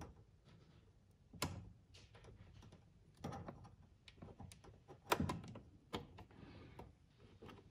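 Pliers gripping and working an old plastic wiring plug loose from the lighting control module in a 1987 Mercedes W124's relay box: scattered light plastic clicks and ticks, with three louder knocks about two seconds apart.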